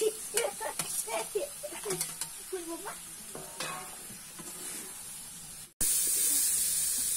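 Steel spoon clinking and scraping against steel bowls as chunks of raw meat are scooped, over a faint sizzle. About six seconds in, after a sudden cut, meat frying in a pot sizzles loudly and steadily.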